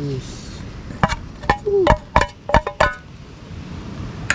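Metal cutlery and cookware clinking: about eight sharp, briefly ringing knocks in two seconds.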